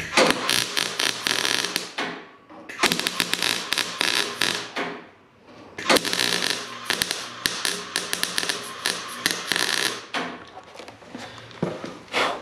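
Wire-feed welder arc crackling as a steel patch panel is welded on: three runs of about two to four seconds with short breaks, then a few short stitch bursts near the end.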